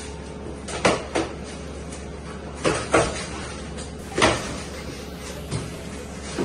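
Cardboard refrigerator box being handled and opened: a series of about six short knocks and thumps, the loudest about one, three and four seconds in, over a steady low hum.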